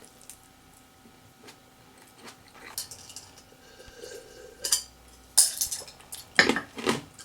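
Eating utensils clinking and scraping against dishes as a meal is finished. A few faint taps come first, then louder, quicker clinks from about halfway, busiest near the end.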